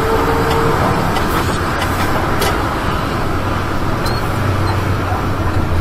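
Mercedes-Benz Axor 1840 truck's straight-six diesel engine running steadily under load, with road noise, heard inside the cab. The low engine drone grows a little louder near the end.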